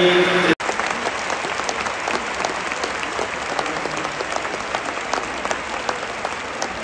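Large stadium crowd of football supporters applauding steadily, many hands clapping at once. A short voice-like sound cuts off abruptly about half a second in.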